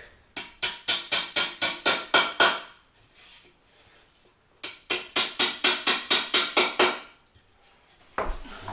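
Hammer tapping a wooden crosspiece onto its dowel joints: two runs of about a dozen quick, sharp blows, some five a second, each run about two seconds long, with a short pause between.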